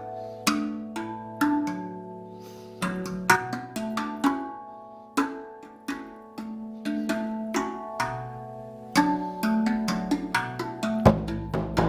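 RAV Vast steel tongue drum in B Celtic with a double ding, played with the fingers in a quick improvised run of struck notes, each ringing on and overlapping the next. A deep low hit comes near the end.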